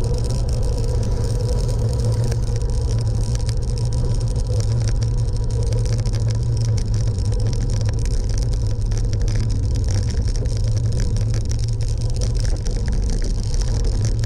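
Steady low rumble of riding on the road, unchanging throughout.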